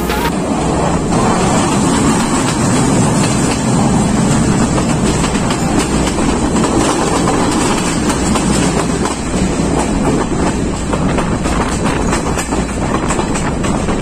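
Train running along the track: a steady rumble with clattering of the wheels over the rails.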